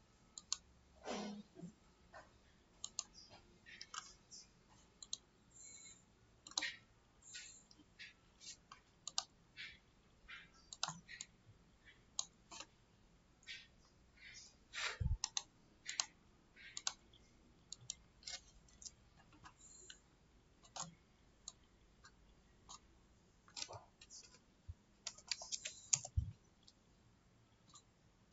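Computer mouse clicks and keyboard keystrokes, sparse and irregular, with a quick run of clicks near the end and a couple of duller knocks.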